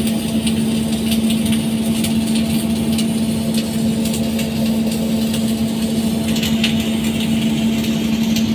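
Electric arc welding: the arc's steady, irregular crackling sizzle over a constant low hum.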